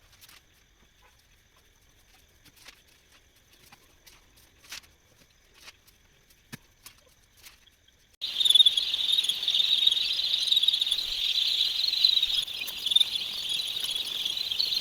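Faint scattered taps at first; then, about eight seconds in, a loud dense chorus of many young brooding chicks peeping together starts suddenly and carries on.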